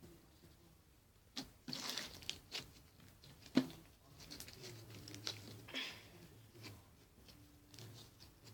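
Slime being handled and stretched in the hands: a scattering of soft sticky clicks and crackles starting about a second and a half in, the sharpest a couple of seconds later.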